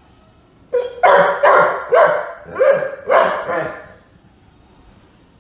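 A dog gives a run of about six short barks with a rising pitch, in about three seconds. They are grumbling protest barks from a dog annoyed that a person is sitting on its couch.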